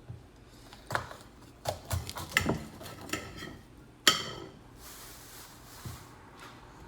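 Kitchen utensils and dishes knocking and clinking, about seven sharp strokes in the first four seconds. The loudest, about four seconds in, is a ringing clink, followed by a faint steady hiss.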